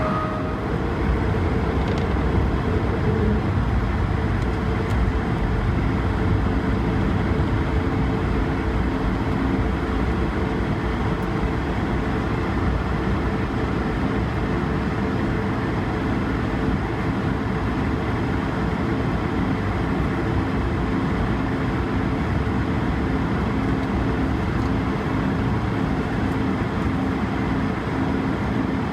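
Steady engine and airframe noise of an Airbus A220-300, heard from inside the cabin: its Pratt & Whitney PW1500G geared turbofans running evenly, with a low rumble under a steady hum.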